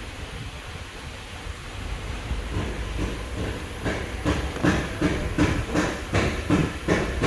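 Steady low background hum. From about four seconds in it is joined by a regular run of short knocks, roughly two to three a second.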